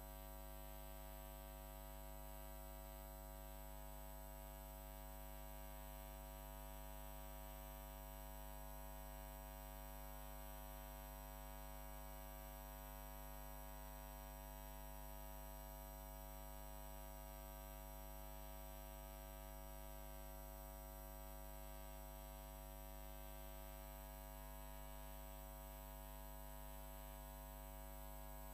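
Steady, faint electrical mains hum with a buzz of higher overtones, unchanging throughout.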